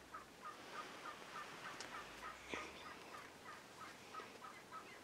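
Faint, evenly paced run of turkey yelps, short hooked notes about three a second, with a light click about two and a half seconds in.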